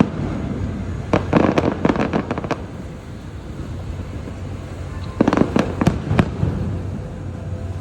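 Fireworks going off in two quick volleys of sharp bangs and cracks, one about a second in and another about five seconds in, over a steady low rumble.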